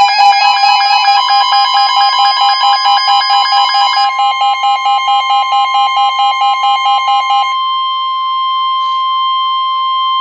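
Weather alert radio sounding a warning alarm: a pulsing two-pitch beep about four times a second over a steady tone near 1 kHz, the alert tone that comes before a severe thunderstorm warning. About seven and a half seconds in the pulsing stops and the steady tone carries on alone, then cuts off at the very end.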